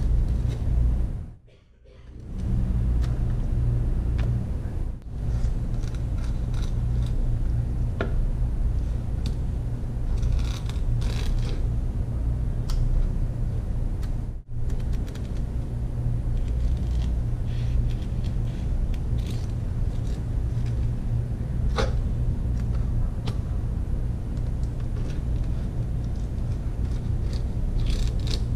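A steady low background hum, cut off briefly about a second and a half in and dipping again about halfway. Over it, a few faint scrapes and taps of a chef's knife against fish and a plastic cutting board during filleting.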